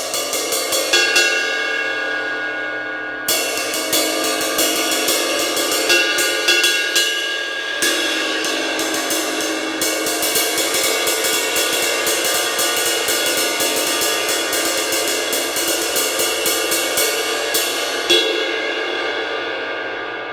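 A 20-inch Zildjian A ride cymbal from about the 1960s, cracked and with keyholing at the mounting hole, struck over and over and left ringing, with a quick run of strikes in the second half and a louder hit near the end. Despite the damage it doesn't sound too bad.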